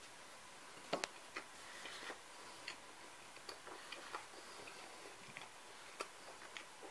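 Faint eating sounds: chewing a bite of rye bread, with scattered light clicks. The sharpest clicks come as a close pair about a second in.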